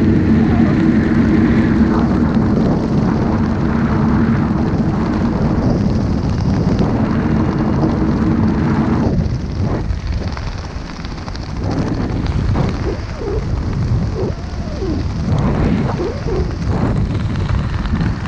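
Onboard sound of a small aircraft's motor and propeller droning at a steady pitch, cut off about nine seconds in. After that, wind rushes over the microphone, rising and falling, with brief wavering tones.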